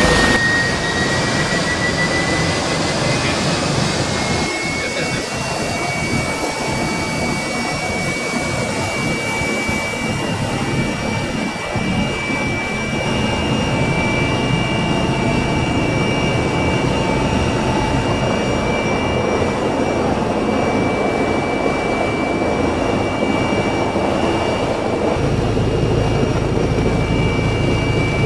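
Eurocopter EC135 rescue helicopter's turbine engines and rotor running loudly and steadily. A turbine whine rises in pitch over the first few seconds as it powers up, then holds steady, and the low rumble thickens near the end as it lifts off and climbs.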